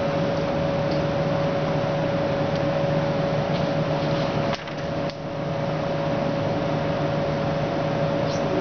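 Steady mechanical hum of lab room equipment: a constant mid-pitched tone over an even hiss, dipping briefly twice about halfway.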